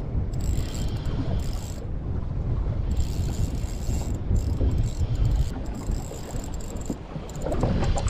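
Wind buffeting the microphone on a small boat at sea, a steady low rumble.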